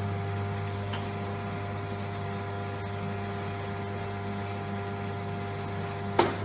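ZDS Plug&Go 5000 electronic pressure pump with its single-phase water-cooled motor running with a steady hum, with a click near the end. It is running without a pressure tank next to it, a setup that makes it start and stop continuously (short-cycling).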